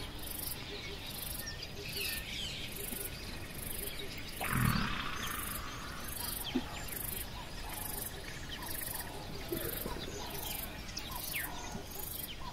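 Bush ambience: an insect's high-pitched pulsing about twice a second, with scattered bird chirps. A short low grunt comes about four and a half seconds in, most likely from the foraging warthogs.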